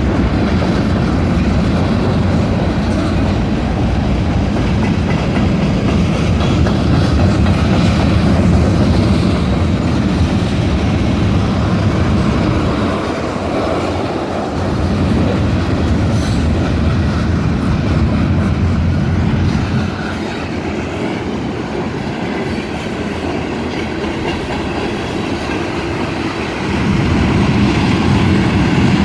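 Train rolling past with the steady clatter of its cars' wheels over the rail joints, getting quieter for a while twice and louder again near the end.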